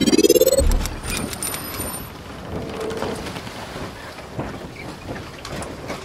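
Logo intro sound effect: a rising whoosh that ends in a low boom just under a second in, followed by a crackling, rain-like hiss with a few faint high chimes.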